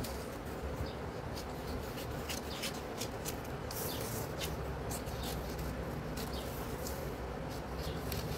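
Scissors snipping and sliding through folded newspaper, with light paper rustling, as many short crisp ticks over a steady low background hum.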